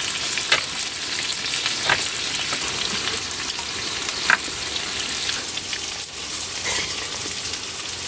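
Food sizzling steadily in a frying pan, with a few light clicks from utensils.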